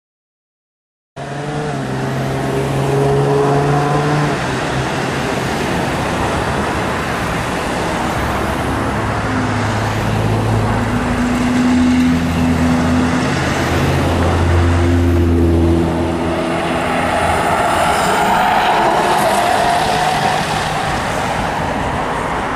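Road traffic at an intersection: cars and SUVs passing with engines running and tyre noise, engine hums changing pitch in steps as they pull away, and a rising whine near the end. It starts suddenly after about a second of silence.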